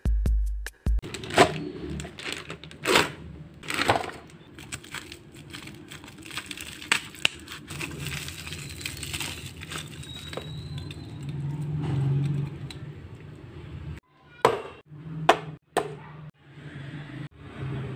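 Bubble wrap crinkling and rustling as it is pulled off a Beyblade spinning top, with scattered sharp clicks. Near the end come a few loud clicks and knocks as the top's plastic and metal parts are taken apart and set down on a table.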